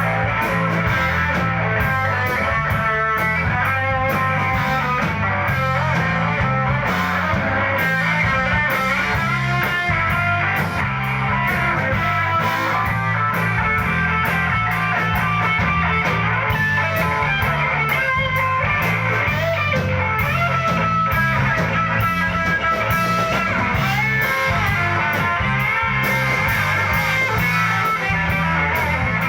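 Live rock band playing: guitars, bass and drum kit, with no singing.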